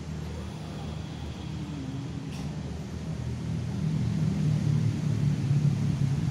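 Low, steady rumble of outdoor background noise, growing louder in the second half.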